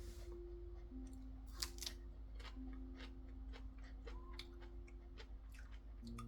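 Soft background music of long held notes, with scattered faint clicks throughout.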